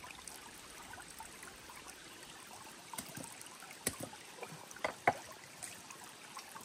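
A shallow creek trickling steadily, with a few sharp knocks of a knife chopping a skinned squirrel on a wooden cutting board, about three to five seconds in.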